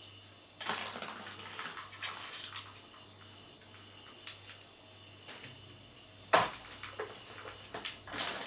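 Plastic ball-track cat toy clattering and rattling as a kitten paws at it and knocks the ball around the track. There is a long burst of clatter about half a second in, then scattered clicks, a sharp knock about two seconds before the end, and more clatter at the very end.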